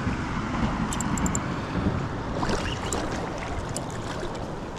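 Steady rush of river water with wind on the microphone, and a few faint ticks about a second in.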